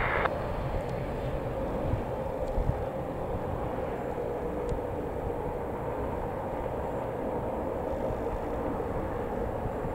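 BAC Strikemaster jet's single Viper turbojet running steadily at low power as the aircraft comes in to land with gear down, a steady jet rumble and hum.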